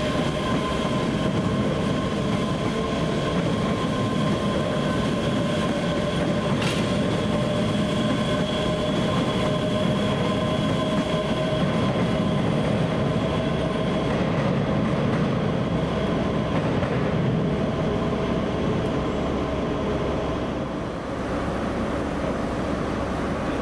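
A train running, a steady rumble with several steady high tones held over it, and a sharp click about seven seconds in.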